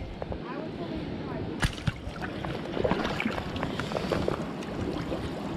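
Wading into a shallow stream in rubber waders: water sloshing and splashing around the legs in irregular bursts, with one sharp knock about one and a half seconds in.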